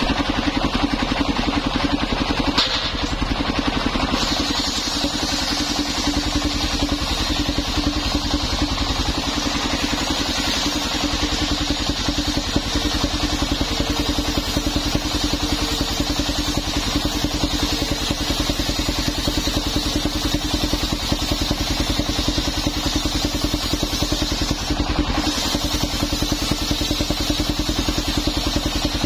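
Stationary engine running steadily to drive a belt-driven circular sawmill, with a fast even pulse and a steady hum, as old coconut timber is fed through the saw blade.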